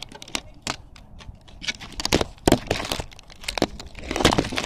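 Small RC car dragging over gritty pavement: irregular crackling, scraping and crunching clicks, with louder knocks about two and a half seconds in and again near the end.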